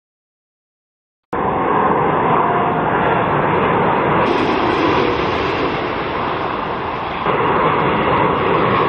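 Jet noise of an Airbus A380-800's four Rolls-Royce Trent 900 engines as the airliner lands: a loud, steady rushing roar that starts abruptly about a second in after a moment of silence.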